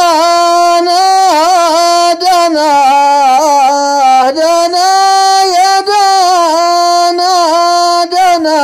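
A single voice singing a Hadrami dan, unaccompanied: long held, wavering melismatic notes on open vowels, with brief breaths between phrases.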